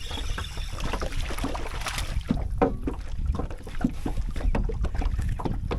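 Spinning reel being cranked and line handled as a hooked crappie is reeled in and swung into the boat, with many small clicks and scrapes. Water laps at the boat hull and wind rumbles on the microphone throughout.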